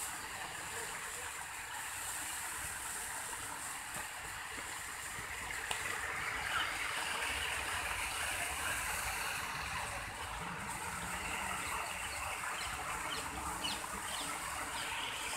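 Garden fountain jets splashing into their pools: a steady rush of falling water.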